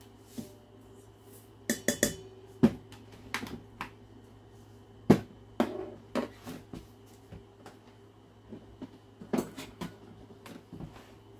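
Kitchen handling noise: irregular knocks and clicks of a plastic sugar container and measuring cup being handled and set down against the counter and a stainless mixing bowl, with a sharp cluster about two seconds in and single sharp knocks near three and five seconds. A faint steady hum runs underneath.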